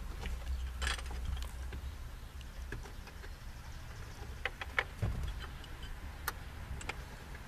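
Scattered sharp metallic clicks and clinks of hand tools and sockets being handled, with a cluster of them about five seconds in, over a low steady hum.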